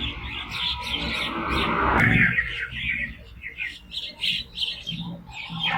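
Birds calling: a quick run of short, high chirps, thinning out after a louder call about two seconds in.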